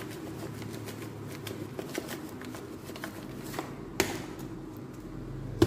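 Sumac being shaken from a spice container over a bowl of salad: a run of light, quick clicks and ticks, with a sharper tap about four seconds in and another near the end.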